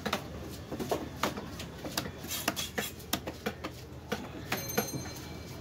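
Heavy fish-cutting knife chopping a large fish into pieces on a wooden log block: a run of sharp, irregular knocks, about two or three a second.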